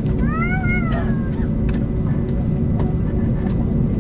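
Steady low rumble inside a jet airliner's cabin on the ground. A little after the start, one high wavering cry rises and falls over about a second.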